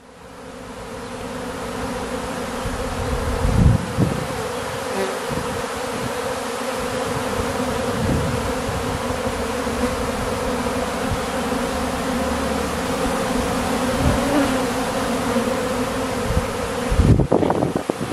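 Steady dense buzzing of a large number of honeybees flying around stacked supers of extracted frames, cleaning out the leftover honey. A few short low thumps sit under the buzz.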